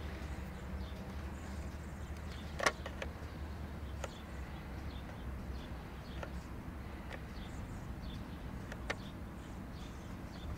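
Open-air ambience: a steady low rumble with faint, scattered bird chirps and a few sharp clicks, the loudest about two and a half seconds in.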